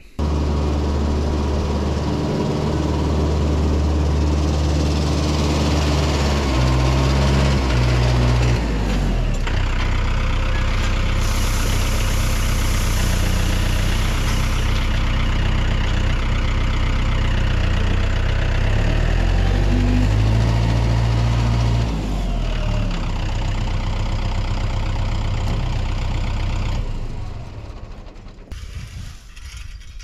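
Tractor engine running under load, its speed rising and falling in steps, then dying away near the end.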